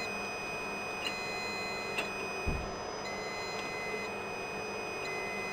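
Steady electronic whine of rack equipment with a high tone that switches on and off about every second, and a few sharp plastic clicks and a low thump as the Riello DVD 2200 UPS front cover is clipped into place.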